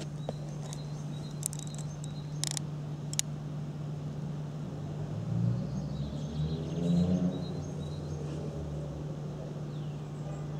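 Radio-controlled model truck's engine-sound unit humming steadily like a diesel at idle, rising and falling in pitch as it revs around the middle. A few sharp clicks in the first few seconds.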